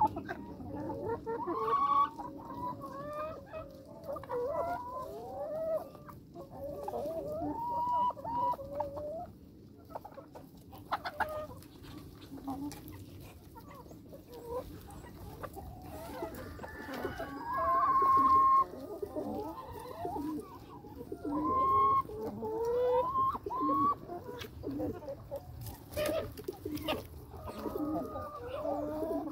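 A flock of brown laying hens clucking and calling over one another in a continuous, overlapping chorus. About two-thirds of the way through, one bird gives a longer, drawn-out call that stands out as the loudest sound.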